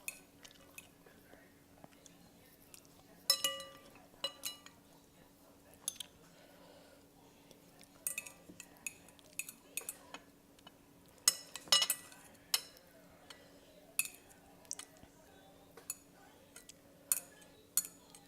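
Eating utensils clinking and tapping against a bowl at irregular intervals, several of the clinks ringing briefly, over a faint steady hum.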